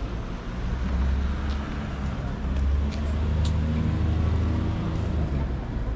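Street traffic: a motor vehicle's engine running close by, a low rumble that grows louder through the middle and eases off near the end.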